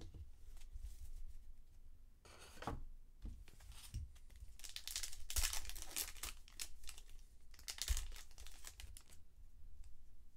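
A foil trading-card pack torn open and its wrapper crinkled, in a few rustling stretches, with the cards handled between them.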